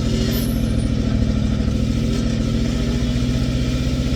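Old International backhoe's engine running steadily at a constant speed.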